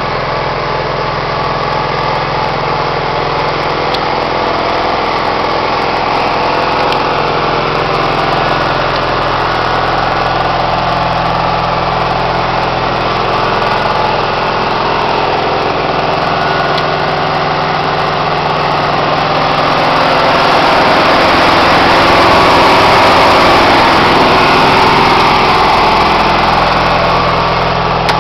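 The 1970 Cushman Trackster's Onan four-stroke engine running steadily at idle, growing somewhat louder about two-thirds of the way through.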